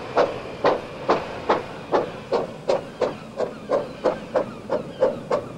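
One-third-scale steam train pulling away, with a regular beat that quickens from about two to about three a second as it gathers speed.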